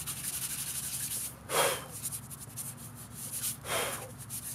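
A large rock being rocked and shifted by hand, scraping and grinding against the ground and the stones beside it. A fine, fast scratching comes first, then two louder rasps, one about a second and a half in and one near the end.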